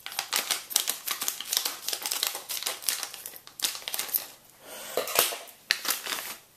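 Packaging being opened by hand: a quick run of crinkling, rustling and clicking, with a short pause about four and a half seconds in.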